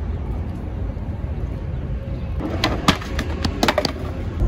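Skateboard in use on concrete: about halfway in, a quick run of sharp clacks and knocks from the deck and wheels striking the ground, over a steady low city rumble.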